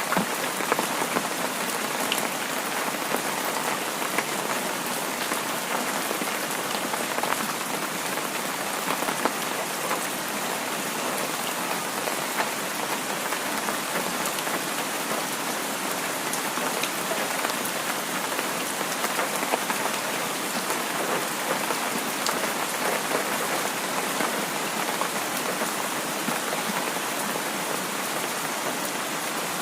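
Heavy rain falling steadily: a dense, even hiss peppered with many small sharp drop hits.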